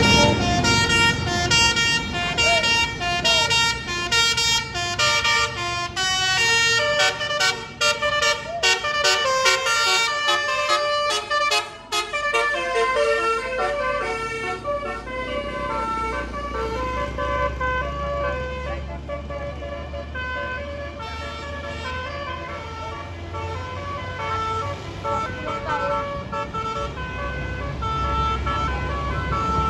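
Multi-note basuri 'telolet' bus horn playing a rapid melody of short high notes, busiest in the first half and going on more sparsely later. A low steady hum comes in under it in the second half as the bus passes.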